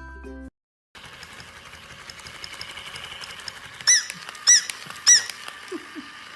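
Tinkling music cuts off half a second in. After a faint hiss with light ticking, there are three short, high-pitched squeaks about half a second apart.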